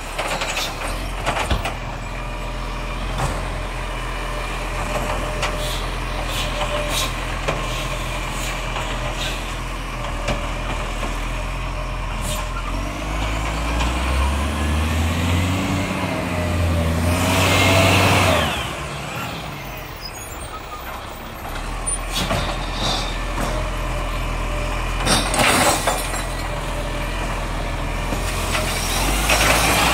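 Iveco side-loading garbage truck working a street: diesel engine idling with knocks and clanks from the hydraulic bin-lifting arm, then revving as the truck drives off. A loud air-brake hiss as it stops about 18 seconds in, then idling again, with more knocks near the end and the engine rising once more.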